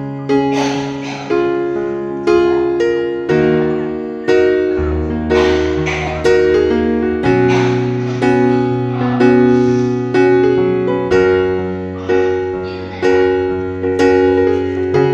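Background solo piano music: notes struck about once or twice a second over held chords and a low bass line.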